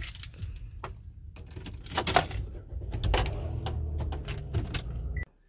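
Metallic jangling and irregular clicks, like keys being handled, over a low steady rumble inside a car; everything cuts off abruptly about five seconds in.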